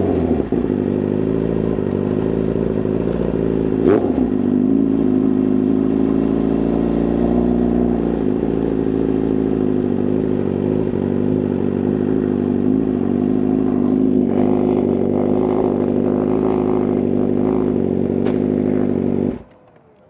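2024 BMW S1000RR's inline-four engine idling steadily through a titanium exhaust, with a short throttle blip about four seconds in. The engine sound stops abruptly near the end.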